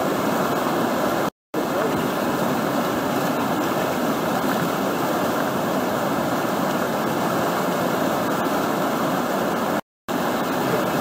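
River whitewater rushing steadily through a rapid and its standing wave. The sound cuts out briefly twice, once about a second and a half in and once near the end.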